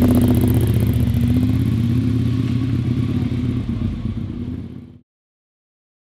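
Motorcycle engine running at a steady pitch, easing off in level over the last couple of seconds before cutting off abruptly about five seconds in.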